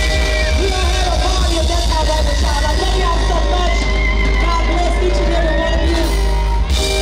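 Live band with electric guitar, drums and a strong steady bass, and a woman singing into a microphone over it.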